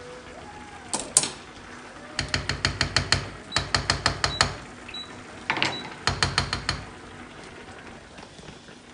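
A spoon knocking and scraping against a stainless-steel frying pan as a thick bolognese sauce is stirred briskly: three runs of quick clicks, about eight a second, with a single sharper click about a second in.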